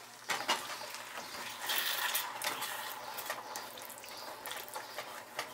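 Tomato and masala gravy simmering in a stainless steel kadai while a wooden spatula stirs it, scraping and knocking against the pan now and then.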